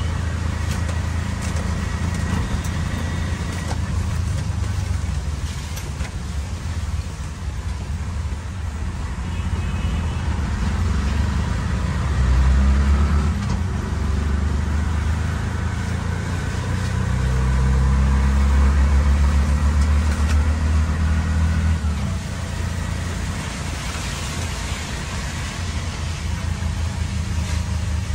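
Auto-rickshaw's small engine running under way with a steady traffic hiss behind it, pulling harder and louder twice: briefly about halfway, then for several seconds a little later.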